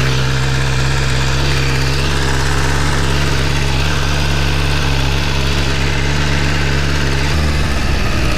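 BMW S1000RR's inline-four engine running at low, steady revs as the motorcycle rolls slowly along, its pitch shifting slightly near the end.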